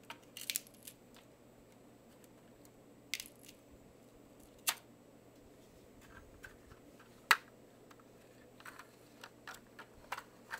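Lego plastic parts clicking and knocking under a hand as the low loader trailer's folding ramps are lowered and a small Lego car is pushed onto the deck. Scattered sharp clicks, the loudest about seven seconds in, then a run of lighter ticks near the end.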